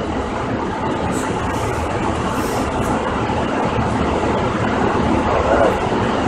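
Steady rushing air noise from a laminar-flow compounding hood's blower fan, with a few faint clicks of vials and syringes being handled.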